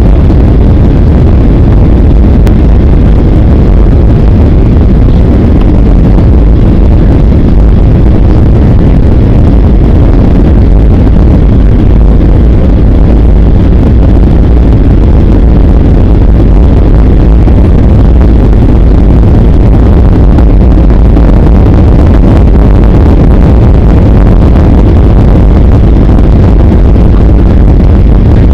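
Steady, deep noise of jet engines and rushing air inside the cabin of a Ryanair Boeing 737 on landing approach with its flaps down, loud and unchanging throughout.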